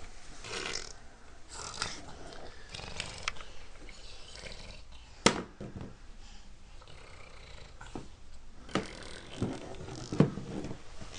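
A toddler rummaging in a wooden shelf of nappies and clothes: plastic nappy packaging and cloth rustling, with a few sharp knocks against the wood, the loudest about five seconds in.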